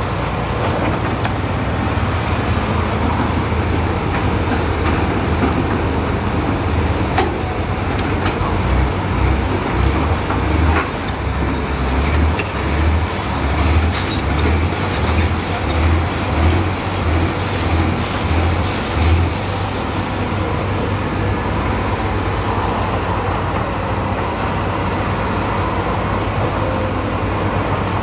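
Diesel engine of heavy earthmoving equipment running, with a deep rumble that swells and falls about once a second through the middle stretch.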